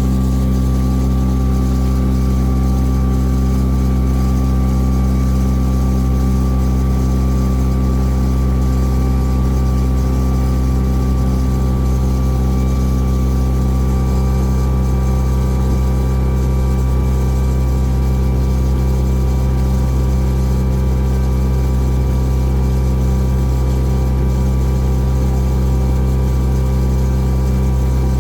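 Cruise boat's engine running steadily with a constant low hum, heard from on board.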